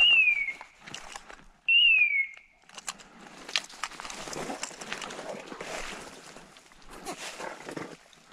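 Two short whistle notes, each falling in pitch, a little under two seconds apart, followed by footsteps and rustling through undergrowth with a few sharp cracks.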